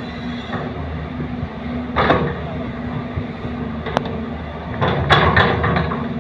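Excavator's diesel engine running steadily as it loads a dump truck, with a sharp knock about two seconds in, another at four seconds, and a cluster of louder knocks and rattles around five seconds in as soil and rock from the bucket land in the steel truck bed.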